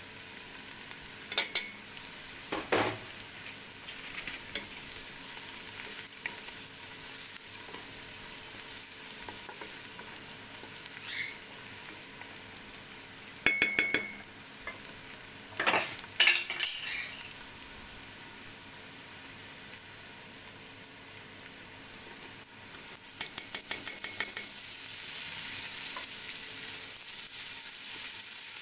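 Lentils and rice sizzling in oil in a stainless steel pot while a wooden spoon stirs, with a few sharp knocks and ringing clinks of the spoon and spice bowl against the metal pot. The sizzle grows louder in the last few seconds.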